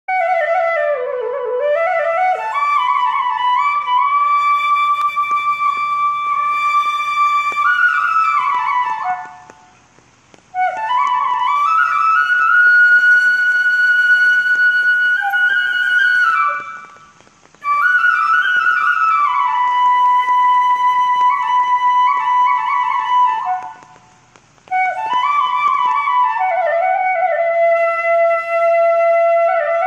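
Solo flute music: a slow melody in four phrases of long held notes, each opening with sliding notes, with short pauses between phrases.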